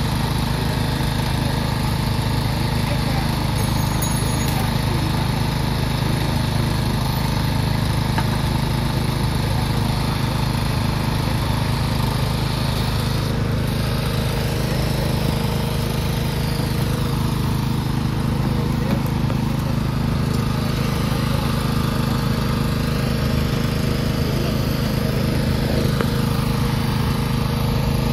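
An engine running steadily at constant speed, a low even drone with no change in pitch.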